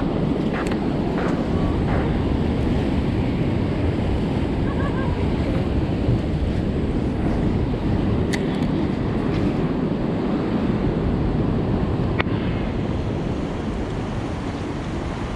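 Steady rushing of wind and ocean surf, with wind buffeting the microphone.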